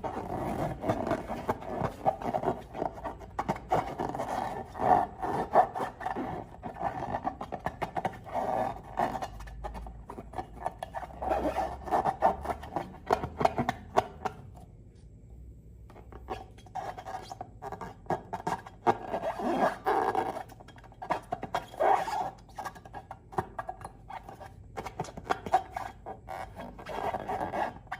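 Slime and rubber balloons being worked by hand: a dense run of sticky crackling, popping and squeaky rubbing. It stops briefly about halfway through, then starts again.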